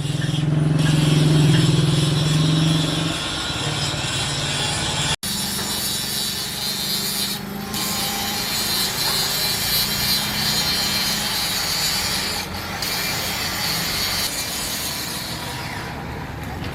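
Continuous scraping and rubbing noise over a steady low hum.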